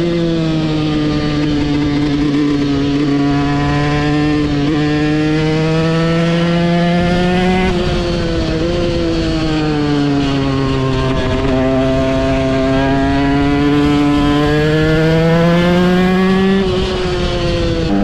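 KTM EXC 125 two-stroke single-cylinder engine running under load while ridden. Its pitch climbs slowly through each gear and drops suddenly at the gear changes, about eight seconds in and again near the end.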